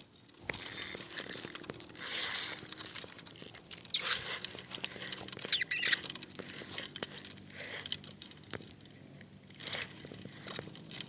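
Spinning reel being cranked by hand: a continuous metallic clicking rattle, with louder bursts about four, six and ten seconds in.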